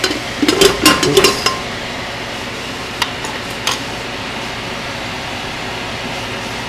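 Metal ladle clinking and knocking against a metal pressure cooker pot several times in the first second and a half, then two lighter clicks, over a steady rushing noise.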